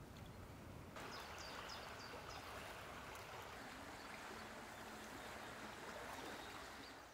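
Faint steady rush of a small river flowing, with a few brief high bird chirps about a second in.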